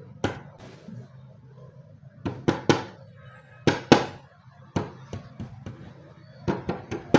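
Pliers used as a hammer, knocking a replacement drawer lock into place in a wooden cabinet: about a dozen sharp knocks at an uneven pace, several in quick groups of two or three.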